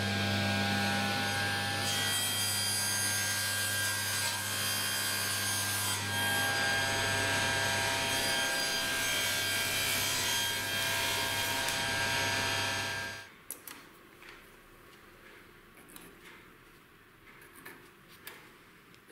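Table saw running and cutting through plywood and laminate-faced sheet stock, a dense steady cutting noise over the motor's hum. About thirteen seconds in it cuts off abruptly, leaving only faint scattered ticks and scratches of a tape measure and pencil marking a board.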